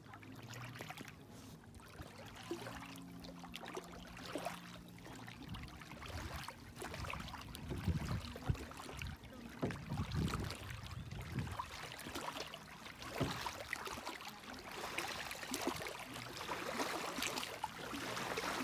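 Small lake ripples lapping and trickling at the water's edge, a steady wash of little splashes and clicks, with a few soft low thumps about eight to eleven seconds in.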